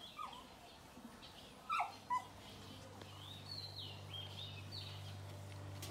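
A small dog whimpering while its maggot-infested eye is handled. It gives two short, sharp yelps about two seconds in, then thin, high whines; a low steady hum comes in partway through.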